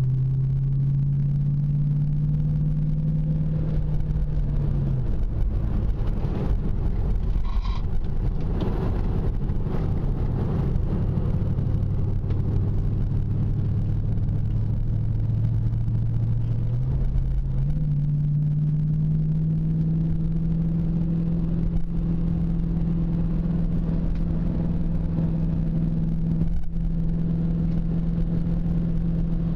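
2000 Ford Mustang GT's 4.6-litre V8 running while the car is driven, heard from inside the cabin. The engine's steady note drops about five seconds in and steps back up around seventeen seconds in.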